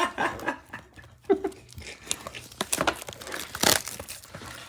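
Crinkling and rustling of foil card-pack wrappers and trading cards being handled, heard as a string of short, irregular crackles and taps.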